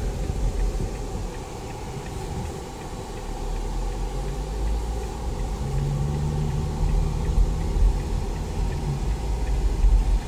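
Cabin noise of a 2022 Chevrolet Captiva driving in traffic: steady engine and tyre rumble. A low steady engine hum comes in about halfway through and fades before the end.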